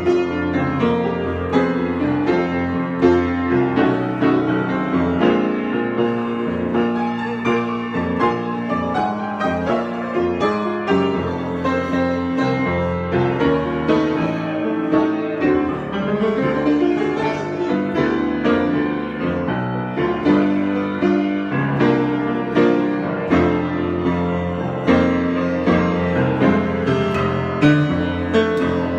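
Piano improvisation: a continuous flow of notes and chords, played without pause.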